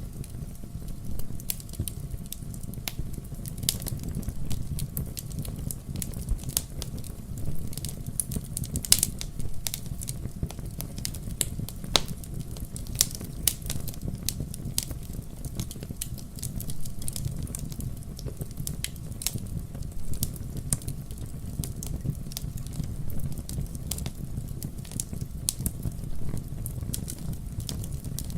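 Wood fire burning in a fireplace: a steady low rumble of the flames with frequent irregular crackles and sharp pops.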